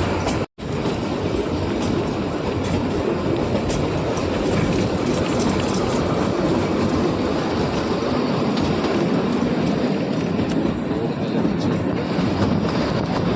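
Kalka–Shimla narrow-gauge toy train running along the track, a steady rumble of wheels and carriages on the rails. It breaks off for an instant about half a second in.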